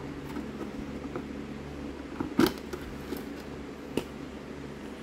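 A hard plastic bead-kit case being handled and opened, with a sharp plastic click about halfway through and a smaller knock near the end, over a steady low hum.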